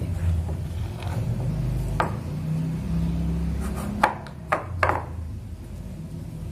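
A spoon stirring and scraping a hot, sticky cocoa-and-milk-powder dough in a bowl, with a sharp clink about two seconds in and three more close together around four to five seconds in. A steady low hum runs underneath.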